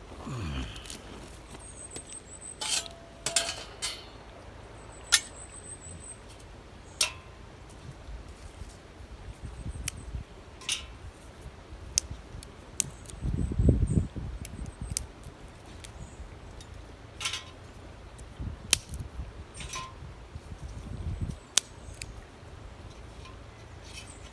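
Scattered sharp clicks and knocks of camp gear being handled, a second or two apart, with low gusts of wind buffeting the microphone about halfway through and near the end.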